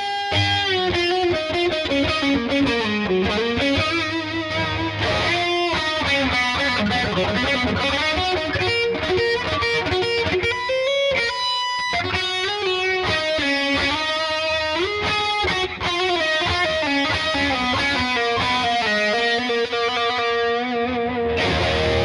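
Washburn XM STD2 electric guitar with Seymour Duncan pickups played through distortion: a continuous lead line with string bends and slides.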